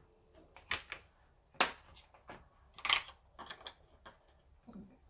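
A series of light clicks and taps from a clear plastic rubber-stamp case and a stamp being handled and set down on a cutting mat. The loudest tap comes about three seconds in.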